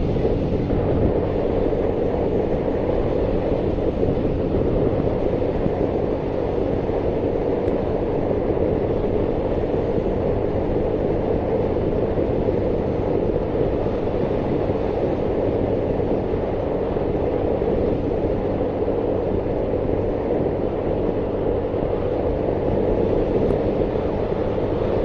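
Steady rush of wind over the microphone while riding at about 50 mph, with the Honda Monkey 125's single-cylinder engine running at a constant cruising speed underneath.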